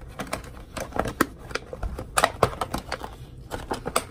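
Stiff clear plastic packaging crackling and clicking as it is handled and pulled apart to free a figure: a run of sharp, irregular clicks, loudest a little past two seconds in.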